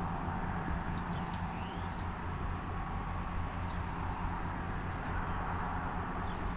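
Steady outdoor background hiss with a few faint bird chirps.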